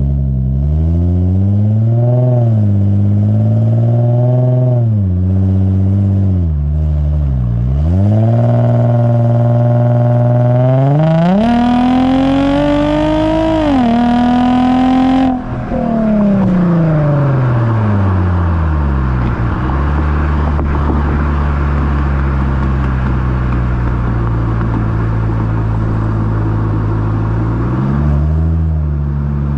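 Lexus IS350's 3.5-litre V6 heard at the tailpipe through an HKS Hi Power cat-back exhaust and Invidia mid-pipe while driving. The revs rise and fall a few times, then the engine pulls hard with rising pitch for about four seconds and cuts off sharply as the throttle closes. It then winds down to a steady cruising drone with wind and road noise.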